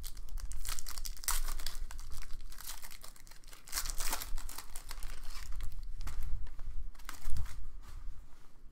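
Foil trading-card pack wrapper being torn open and crinkled by hand, a crackling rustle that comes in several spells.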